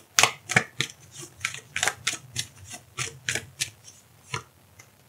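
A deck of oracle cards being shuffled by hand: a quick run of crisp card taps, about three to four a second, that thins out and stops near the end.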